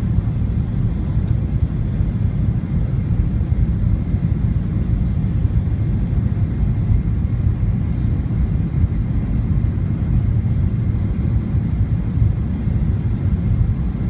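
Steady low rumble inside a Boeing 737-900ER's cabin on approach: jet engine and airflow noise heard from a window seat over the wing, with a faint high steady whine above it.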